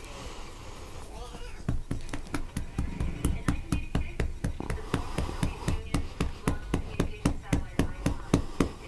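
Rapid, even tapping or knocking, about three to four knocks a second, starting about two seconds in.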